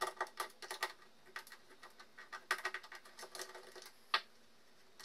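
Small screwdriver working the terminal screws of a recessed LED spotlight's transformer: runs of quick clicks and scrapes, then a single sharper click about four seconds in.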